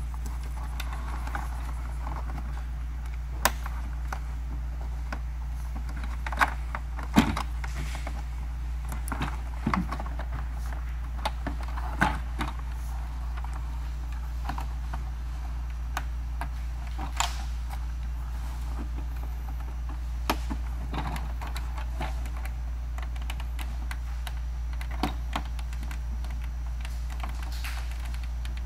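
Irregular plastic clicks and rattles of wiring-harness connectors being unplugged from a Tesla Model S front door panel, the sharpest about seven seconds in, over a steady low hum.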